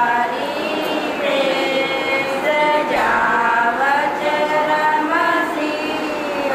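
Several voices singing together in a chorus, with long held notes that slide up and down in pitch.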